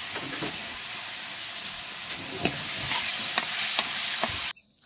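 Hot oil sizzling in a wok as ginger fries in it, with a few sharp clicks over the sizzle. The sizzle cuts off suddenly near the end.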